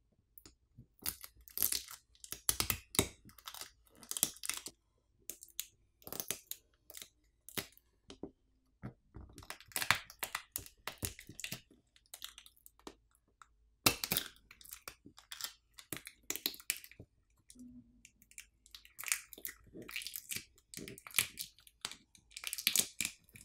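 Adhesive pull tabs being stripped out from under a smartphone's batteries to free them from the frame: a run of irregular crackling and short tearing sounds, with small clicks and knocks.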